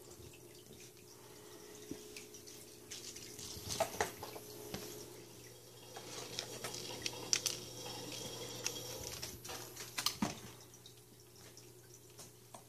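Kittens moving and playing on a hard laminate floor: scattered light taps and clicks over a steady low hum, with the sharpest clicks about 4, 7 and 10 seconds in.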